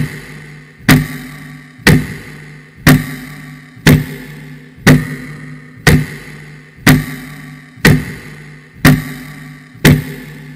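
A loud, evenly paced beat, one sharp hit about every second, each dying away quickly, over a steady low drone.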